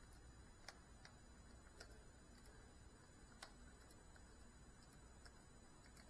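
Near silence: faint room hiss with a few scattered, irregular soft ticks.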